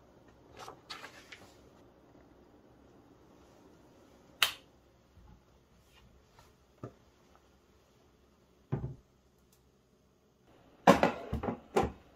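Wooden kitchen wall cabinet and its slide-out range-hood panel being handled: a few light rattles, a sharp click, and a low thump, then a burst of loud knocks and clatter near the end as the cabinet door is opened.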